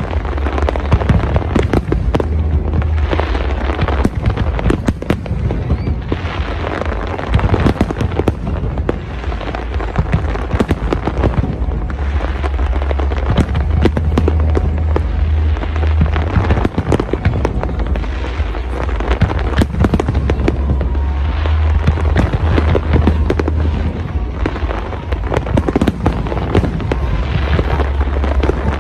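Aerial fireworks display: a rapid, continuous barrage of shell bursts and crackling reports, many overlapping, over a steady low rumble.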